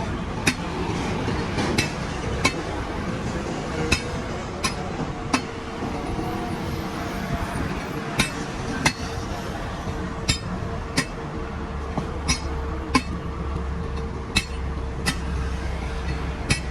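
Hammer striking metal on a truck wheel: sharp ringing clinks about once a second, often in pairs, at an uneven pace, over a steady low hum.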